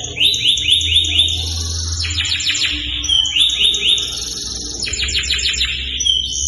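A domestic canary singing continuously: rapid runs of repeated rising notes and rolling trills, each phrase lasting about a second before it switches to the next. A steady low hum runs underneath.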